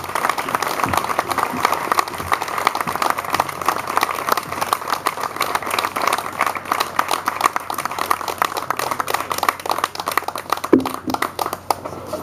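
Audience applauding, a dense steady clatter of many hands clapping that thins out near the end.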